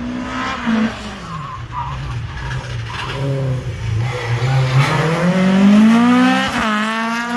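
Rally car on a tarmac sprint stage braking into a corner with tyres squealing, then accelerating hard out of it. The engine note climbs steeply and breaks off in a quick upshift near the end.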